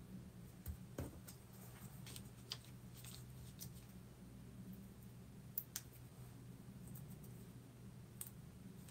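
Faint handling of small paper pieces on a craft desk: soft rustles and a few small clicks as die-cut pieces are pressed down and picked up, including two clicks close together about halfway through, over a steady low hum.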